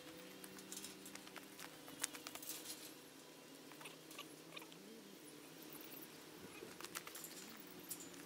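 Faint scattered clicks and light metallic rattles from a pair of galvanized steel field gates being swung shut, most of them in the first three seconds, over a faint steady hum.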